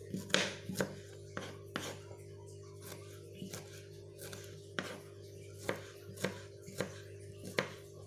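Knife slicing shallots thin: about a dozen sharp, short cuts at an uneven pace.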